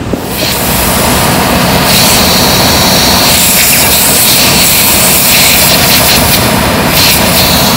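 Compressed air hissing loudly and steadily out of a leaking rubber air spring (airbag) in a Freightliner Cascadia's suspension, starting about half a second in, with the truck's engine running underneath. The leak is bad enough that the air tanks are slow to fill.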